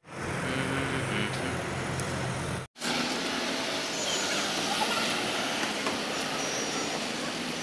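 Road traffic ambience: a steady wash of vehicles running along a wide city road, with a faint high whine in the first few seconds. The sound drops out for an instant twice.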